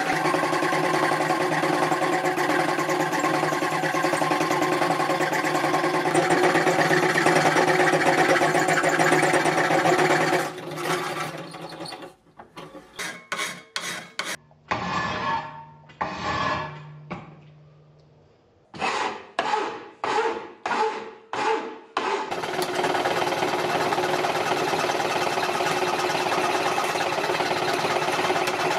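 Treadle-driven wooden fret saw cutting brass plate: a steady, busy mechanical running sound that breaks up partway through into separate blade strokes, about two a second, before running steadily again. The saw runs loose and jiggly, and its maker was not happy with how it sounded.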